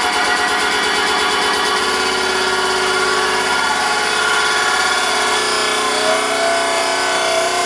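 Loud electronic dance music over the bar's sound system, carried by a distorted, buzzing synth whose notes shift about two and five seconds in.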